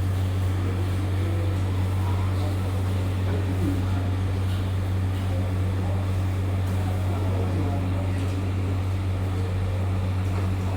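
A steady low mechanical hum that stays level throughout.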